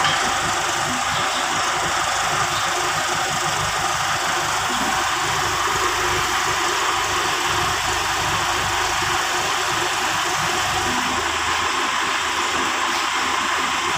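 Farm tractor's diesel engine running steadily.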